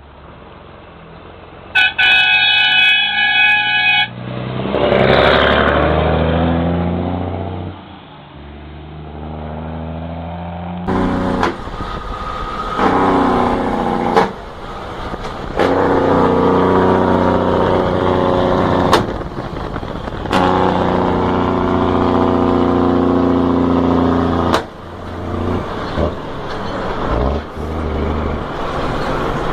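A truck air horn sounds once, for about two seconds, shortly after the start. It is followed by a heavy International truck passing with its diesel engine rumbling, the sound swelling and then fading. After that a diesel truck engine runs steadily, its note shifting now and then, with a few sharp clicks.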